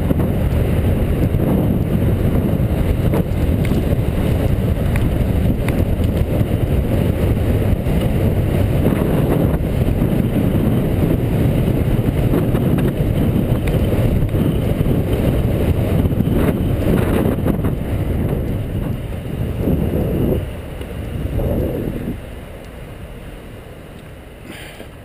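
Wind buffeting the microphone of a camera on a moving bicycle, a loud, dense rumble, with street traffic noise under it. It drops off sharply about twenty seconds in as the bike slows to a stop.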